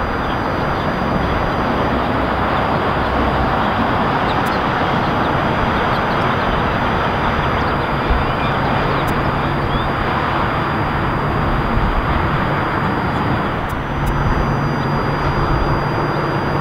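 Distant airliner jet engines: a steady, even rush of noise with a low rumble beneath, joined by a low hum about fourteen seconds in.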